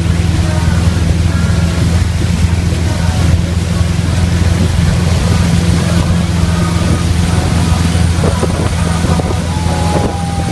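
Motorboat engine running steadily while towing a wakeboarder, a low even hum, with water rushing past the hull.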